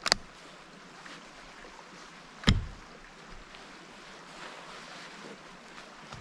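A single rifle shot from a Remington 700 bolt-action rifle about two and a half seconds in, after a sharp metallic click at the start, with a faint steady hiss in between.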